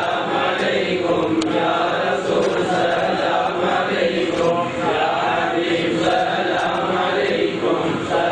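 A group of voices chanting a madh, an Islamic devotional song in praise of the Prophet Muhammad, sung together without a break.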